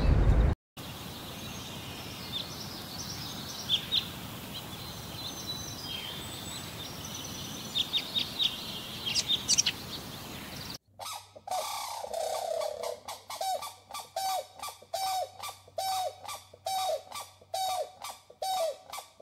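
Birds chirping faintly and sparsely over a steady hiss. About eleven seconds in, a bird starts calling in a fast regular series, roughly one short hooked call every two-thirds of a second. A brief loud low rumble cuts off in the first second.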